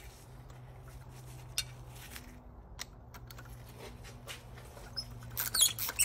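Small scattered clicks and scrapes of a spark plug and plug socket being handled over the engine, with a busier run of sharp metallic clicks near the end as the socket goes into a spark plug hole. A steady low hum runs underneath.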